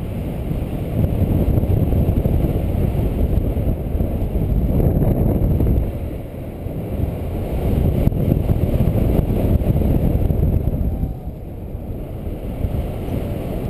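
Wind buffeting the microphone of a camera worn by a paraglider pilot in flight: a loud, low rushing rumble that surges and eases, dropping off briefly about six seconds in and again near the end.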